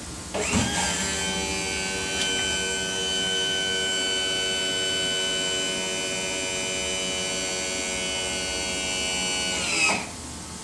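MerCruiser power trim pump's electric motor running with a steady whine, lowering the Bravo outdrive on its newly fitted trim cylinders. It spins up about half a second in and winds down and stops near the end.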